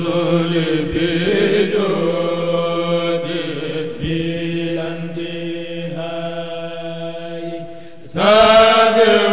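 A kourel, a group of men's voices chanting a Mouride khassida in Arabic through microphones. Some voices hold long steady notes under a wavering melody line, and the full group comes in louder just after eight seconds as a new phrase begins.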